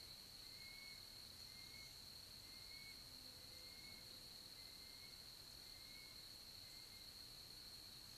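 Faint outdoor ambience: a steady high-pitched hum, with a faint short chirp repeating a little more than once a second.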